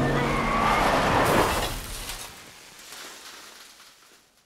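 Cartoon pickup truck sliding to a stop on a dirt track: a loud rush of engine and tyre-on-dirt noise for the first second and a half, which then dies away almost to silence near the end.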